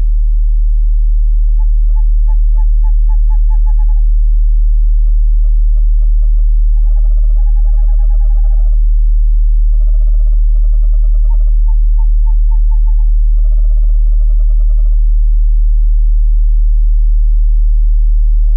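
Owl calls: a series of rapid trilled hoots, each trill lasting one to two seconds, some overlapping at a higher and a lower pitch. Underneath, a loud steady deep tone of the kind used for meditation.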